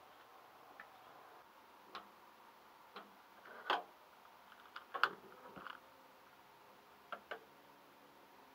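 Irregular sharp clicks, about eight spread over several seconds, as a propane RV stove burner is lit.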